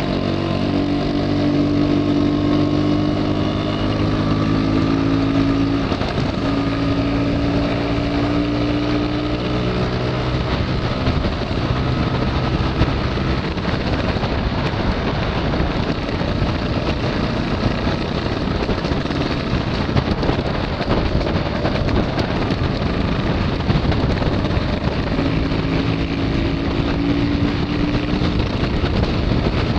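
Vintage two-stroke Lambretta and Vespa scooter engines running at cruising speed on the move, with wind rushing over the microphone. The engine note climbs slightly early on, sinks under the wind noise through the middle, and comes back near the end.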